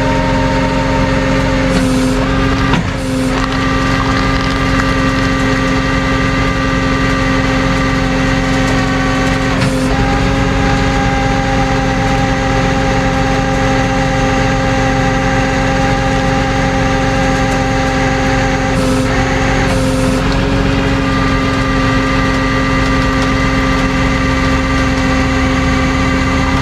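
A truck engine running at a steady speed with a steady whine over it, as from a tow truck during a winch-out; the pitch shifts slightly a few times.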